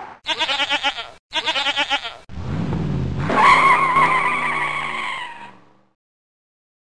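Sound effects: a goat bleating twice, then a car engine revving up and tyres squealing, fading out well before the end.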